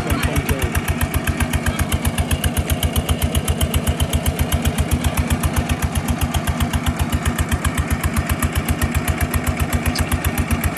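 Engine driving the water pump that drains the pond, running steadily with a rapid, even beat.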